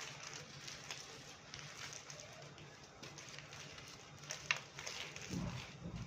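Dry red clay crumbling: faint crackling and small gritty clicks, with one sharper crack about four and a half seconds in and a dull thud just after it.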